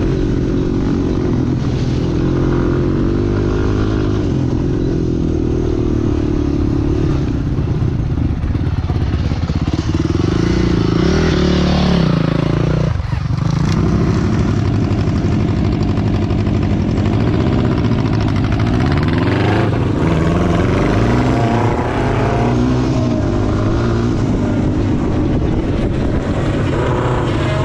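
Quad bike engine running hard on a dirt track, its revs rising and falling through the ride, with a sudden brief drop in revs about halfway through.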